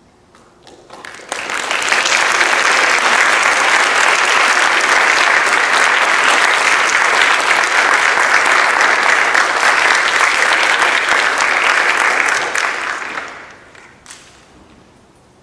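Audience applauding: a few first claps, swelling quickly into full, steady applause that lasts about ten seconds, then dying away near the end with one last stray clap.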